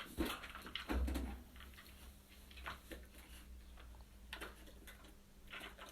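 A dog moving about as it hunts for a hidden treat: scattered light taps and small knocks, with a dull thump about a second in.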